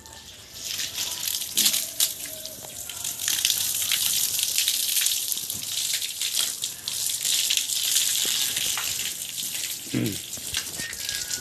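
Water gushing and splashing steadily over a Murrah buffalo as it is bathed, starting about half a second in.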